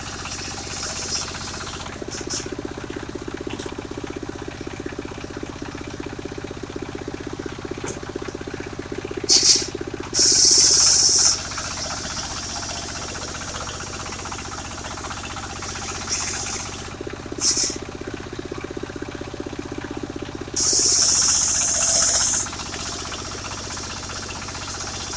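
Engine of a portable circular-saw sawmill running steadily. Twice, about ten seconds apart, a short hissing burst comes first, then a louder one lasting a second or two.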